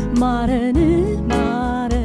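A solo singer sings a worship song (zimare) into a microphone, with a held, gliding melody line. An electronic keyboard accompanies with sustained chords and a steady beat of about four strokes a second.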